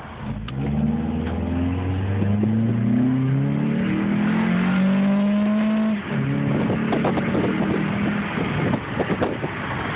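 2008 Honda Accord sedan's engine breathing through a custom cold air intake while accelerating, heard from inside the car with the windows open: its pitch climbs for several seconds, drops sharply at an upshift about six seconds in, then climbs again more gently.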